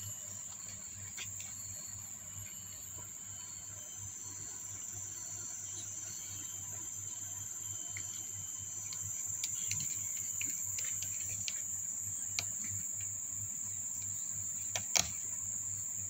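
Kittens scuffling in a plastic box: scattered light clicks and scratches of claws on plastic, with one sharper click about 15 seconds in. A steady high-pitched whine, like crickets, and a low hum run underneath.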